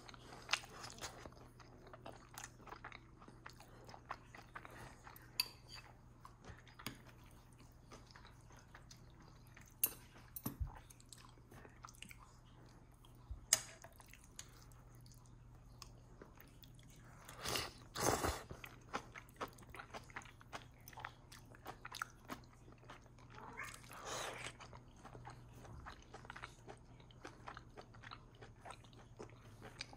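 Close-up eating sounds of a person chewing and biting food: many small wet clicks and soft crunches, with a few louder noisy bursts, the loudest a little past the middle.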